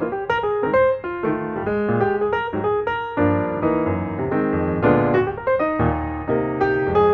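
Background piano music: a steady run of plucked-sounding notes with chords.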